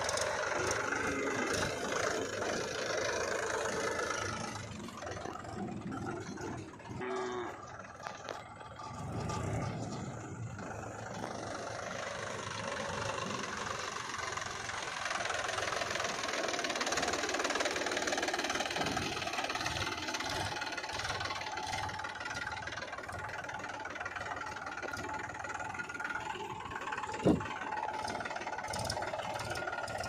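Mahindra 265 DI tractor's three-cylinder diesel engine running steadily, with one sharp knock near the end.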